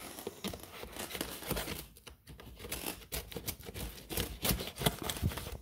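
Packing tape on a cardboard box being cut and torn open with a small metal tool: irregular scraping, scratching and tearing with crinkles of tape and cardboard.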